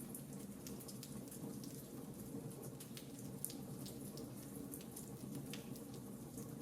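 Wood fire in a fireplace crackling: irregular sharp pops and snaps, several a second, over a steady low background.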